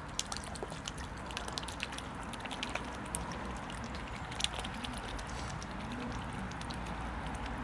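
Mute swans feeding at the water's surface: a rapid scatter of small splashes, drips and clicks as their bills dip and dabble in the water, over a steady low background rumble.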